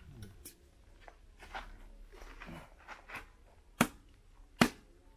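A heavy chopping knife striking a nipa palm fruit head: two sharp whacks near the end, under a second apart, after a stretch of faint handling noise.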